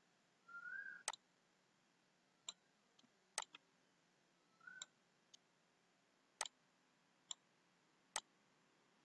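Computer mouse buttons clicking, about eight sharp single clicks spread irregularly a second or so apart, in near silence.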